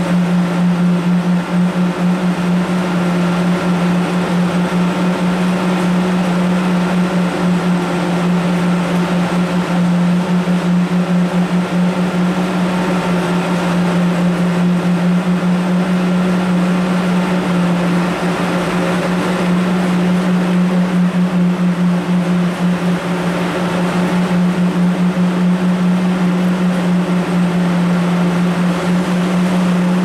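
TGV Atlantique electric power cars standing idle at a station platform, their on-board equipment giving a loud, steady low drone with a slight fluttering pulse and fainter higher steady tones above it.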